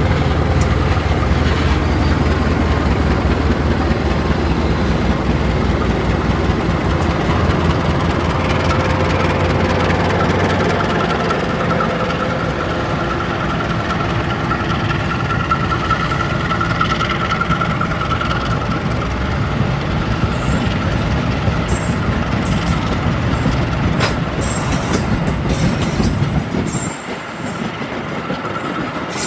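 A CC 201 diesel-electric locomotive passes close with its diesel engine running in a steady low hum. About eleven seconds in the hum fades and the passenger coaches roll by, their wheels running on the rails with a faint steady squeal midway.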